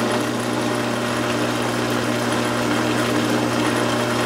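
Drill press running at about 580 RPM, its 1/8 inch bit cutting a pilot hole in 3/8 inch aluminum plate: a steady motor hum.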